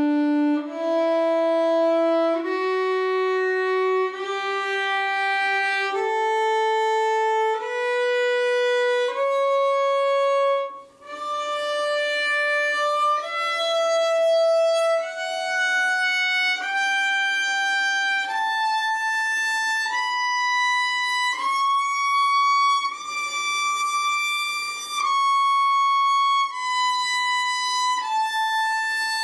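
Solo violin playing a two-octave D major scale, one slow bow stroke per note, about a note every second and a half. It climbs from the open D string to the high D and starts back down near the end. On the way up the left hand shifts from first to third position.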